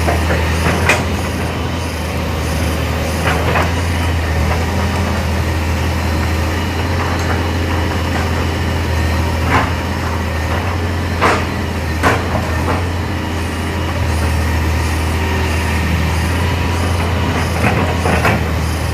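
Excavator's diesel engine running steadily with a deep drone, broken by several sharp metallic clanks and squeals from the tracks and bucket as it works.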